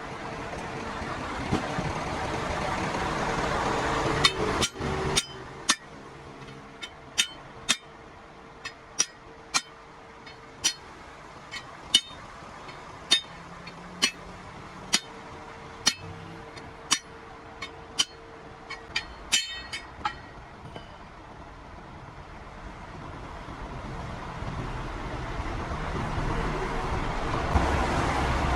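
Sharp, ringing metal-on-metal knocks, about twenty of them at roughly one a second, typical of hammer blows during a roadside truck-tyre repair. Highway traffic runs underneath, swelling as vehicles pass early on and again near the end.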